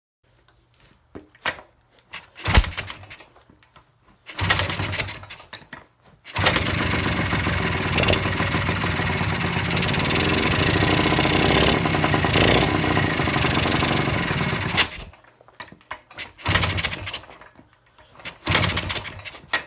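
Kawasaki F7 175cc single-cylinder two-stroke engine being kicked over. After a few short bursts it catches about six seconds in, runs for about eight seconds and dies, followed by more short bursts. The plugs were just tightened against a suspected compression leak through damaged threads.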